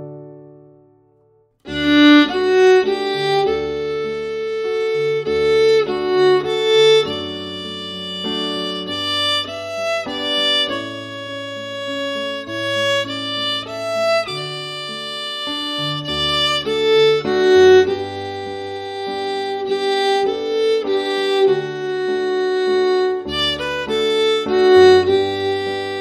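Fiddle playing a lively melody at full performance speed over a backing accompaniment with steady bass notes. It comes in just under two seconds in, after a held chord fades out.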